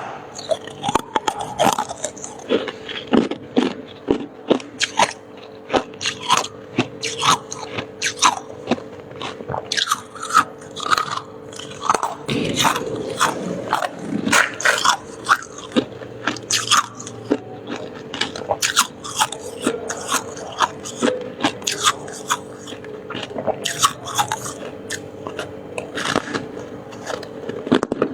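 Crisp freezer frost being bitten and chewed close to the microphone: a steady run of sharp, irregular crunches, about one or two a second, over a faint steady hum.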